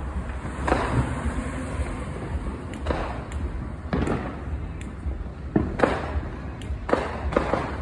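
Firework bangs and pops going off one after another with echoes: a few spaced bangs, then a pair and a quick run of pops near the end, over a steady low rumble.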